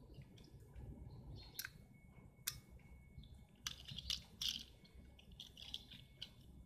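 Faint handling noise of a plastic rotary selector switch and its wires: scattered small clicks and rustles, the sharpest click about two and a half seconds in.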